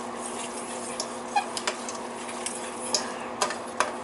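A spoon scraping and clicking against a stainless steel pot as rice pilaf is stirred: a few light, scattered clicks over a steady low hum.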